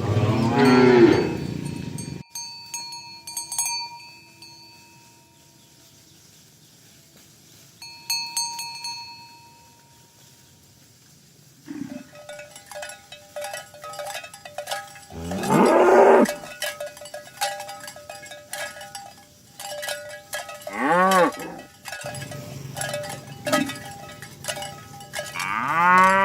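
Cattle mooing, with cowbells clanking among them. A long moo opens; after a quiet lull of several seconds the bells start clanking steadily, and three more moos follow, the last near the end.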